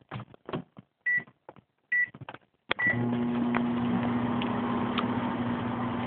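Microwave oven keypad beeping three times as the cooking time is entered, then the oven starts with a click a little under three seconds in and runs with a steady low hum.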